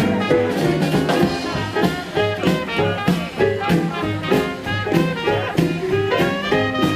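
Traditional New Orleans jazz band playing an instrumental passage, with trumpet and trombone over a walking bass and drums.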